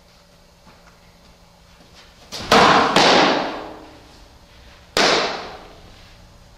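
Loud, sharp smacks of a pitched softball striking its target in a reverberant training room. There are two hits close together about two and a half seconds in and another about five seconds in, each ringing on briefly.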